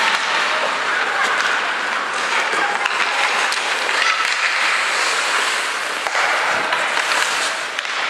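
Ice hockey game in a rink: skates scraping and carving on the ice as players skate up the ice, a steady hiss with voices in the background.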